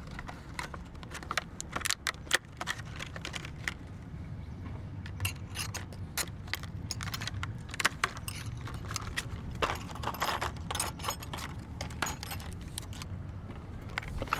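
Small metal parts and tools being handled: irregular clicks and clinks, busiest in the middle stretch, over a low steady hum.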